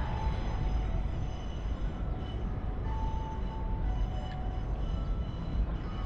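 A train running past: a steady low rumble with faint thin whines over it, one clearer about halfway through.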